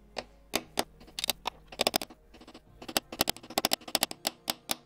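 Small hammer tapping a steel punch against a dented silver pocket watch bezel to knock the dent out: many light, sharp metallic taps, uneven in spacing, some in quick runs of several a second. Faint background music runs underneath.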